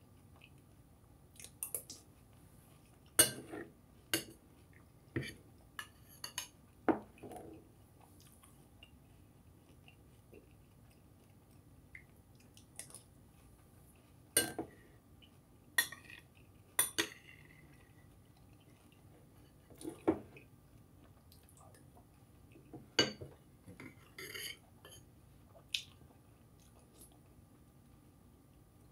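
Spoon clinking against a bowl of cereal, about a dozen sharp, irregular clicks, with a few short crunchy bursts of the cereal (Cinnamon Toast Crunch mixed with Raisin Bran) being scooped and eaten.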